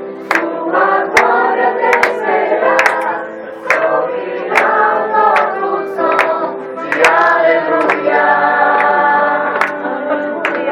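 A group of voices singing together, with sharp claps keeping a steady beat a little faster than one per second.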